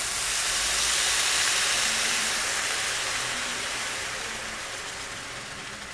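White wine hitting a hot pan of risotto rice toasting with onion and garlic, hissing and sizzling loudly as it boils on contact, then slowly dying down as the wine starts to reduce.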